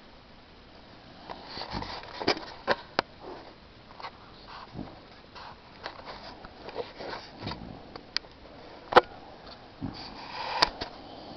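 Sleeping dog snorting and snuffling in short, irregular bursts as she snores, mixed with a few sharp clicks, starting about a second and a half in; the loudest snort comes about nine seconds in.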